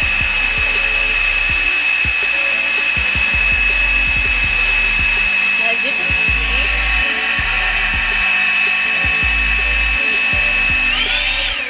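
Revlon brush blow dryer running, a steady high whine over a rush of air. Near the end the whine rises briefly and the dryer switches off.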